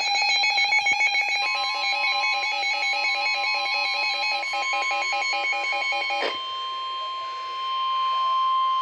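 A rapidly pulsing, multi-pitched electronic alert beep sounds for about six seconds. About a second and a half in, the NOAA Weather Radio's steady single-pitched warning alarm tone joins it and holds on alone after the beeping stops, the attention signal that comes before a tornado warning message.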